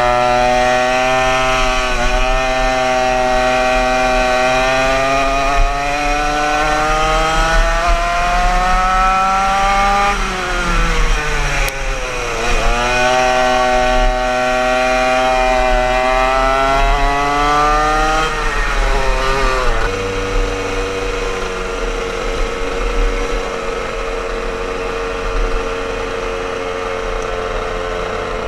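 Yamaha KT100 100cc two-stroke kart engine heard on board, its pitch climbing steadily under acceleration, then dropping sharply as the throttle is lifted about ten seconds in. It climbs again and drops once more a little before twenty seconds, then settles to a steady lower note as the kart slows into the pits.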